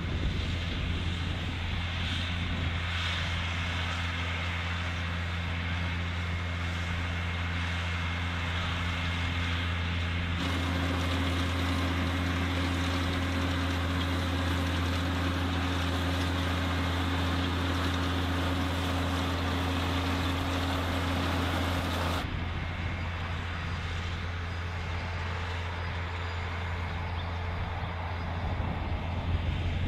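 New Holland T6050 tractor engine running steadily under load while pulling a Kuhn BFP 3135 round baler-wrapper through the swath. The hum is steady, and the sound changes abruptly about ten seconds in and again about twenty-two seconds in.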